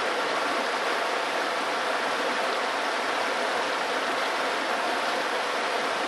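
Small river rushing steadily over rocks and shallow rapids, running full after recent rains.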